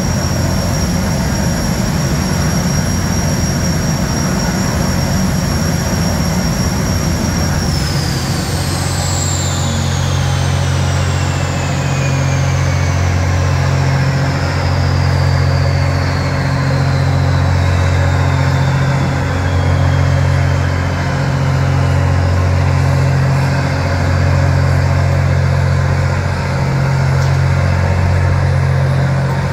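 Kawasaki Jetfoil's gas turbine being shut down: its high whine holds steady, then about eight seconds in the low rumble drops away and the whine falls steadily in pitch over the next fifteen seconds as the turbine spools down. A steady low hum with a slow pulsing remains underneath.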